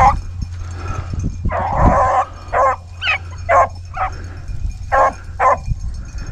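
Rabbit hounds baying as they run a rabbit's trail: one drawn-out bawl about a second and a half in, then a string of short barks roughly every half second.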